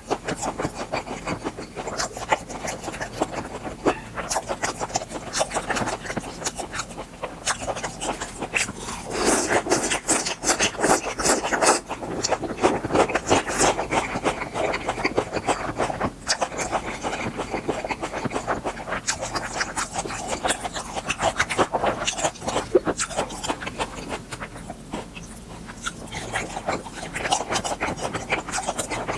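Close-miked chewing and mouth sounds of someone eating grilled beef tripe: wet smacking and clicking that keeps going, louder in two spells.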